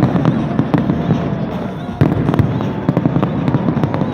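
Fireworks exploding in quick succession, a dense run of bangs and pops over a low rumble, with a sudden louder burst about two seconds in.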